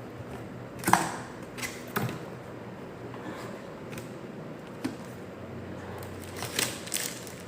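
A cardboard box and its packaging being opened and handled: scattered sharp clicks and knocks, the loudest about a second in and a small cluster near the end.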